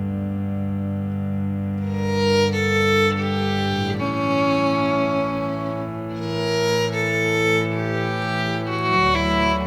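Background music: slow, sustained string melody over held low bass notes, with a new note every second or so.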